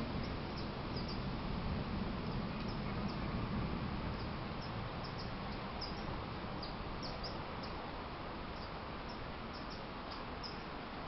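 Small birds giving short, high chirps again and again over a steady hiss of storm weather. The tail of a low thunder rumble fades out in the first second or so.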